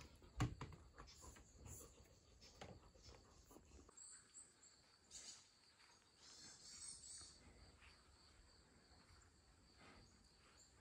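Near silence: a quiet woodland ambience with faint high chirps and trills, after a few light knocks in the first second or so.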